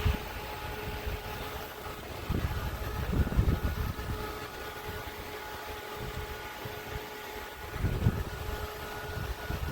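Small electric fan motor of a mini air cooler running steadily, a whirring hum with a few fixed tones over airy hiss. Low rumbles swell twice, a couple of seconds in and again near the end.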